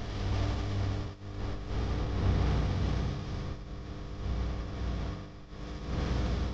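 An engine running steadily under a rushing noise that swells and dips every second or two.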